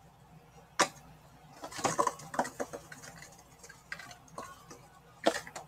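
A seasoning shaker shaken and tapped over a pan of vegetables: a few sharp clicks, and a short run of rattling taps about two seconds in.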